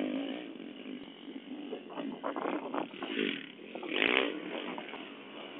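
Dirt bike engines running and revving on the track, swelling loudest about four seconds in.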